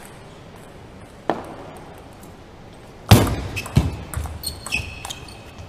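Table tennis rally: the ball clicks sharply off paddles and table, loudest about three seconds in, with a few high squeaks near the end.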